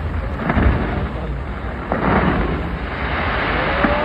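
Fireworks going off: a continuous rumble of booms with several sharper bangs and crackling, and whistles beginning near the end.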